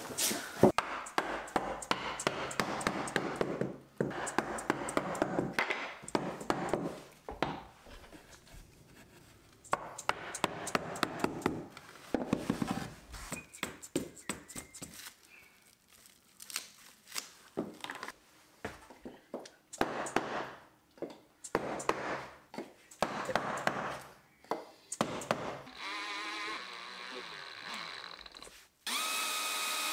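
Repeated knocks and taps of a rubber mallet tapping glued wooden laminations against a curved wall, with plastic sheeting rustling as it is handled. Near the end a cordless drill-driver starts running.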